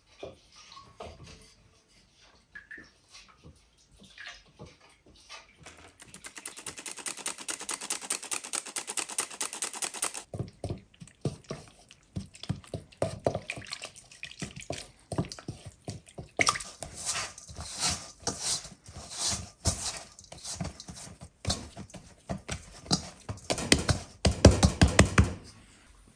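Kitchen food-preparation sounds: scattered light clicks and knocks, then about four seconds of fast, even scraping or stirring strokes. After that comes a long run of louder knocks and taps, densest near the end.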